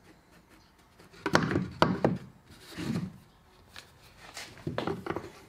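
MDF router template knocking and scraping against a wooden box as it is shifted into place, with clicks and knocks from a plastic spring clamp being fitted. The sounds come in several short clusters rather than steadily.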